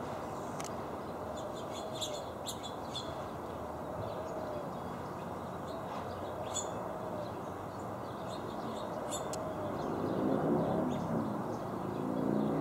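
Scattered short, sharp chirps of house finches over a steady background hiss. A low droning hum swells twice in the last few seconds.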